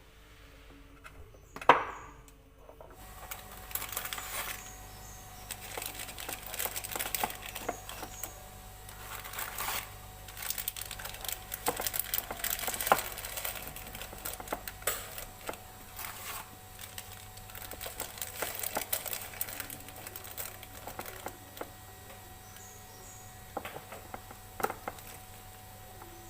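Hands handling small objects: a sharp knock about two seconds in, then a long run of small clicks, taps and crinkling, and another knock near the end.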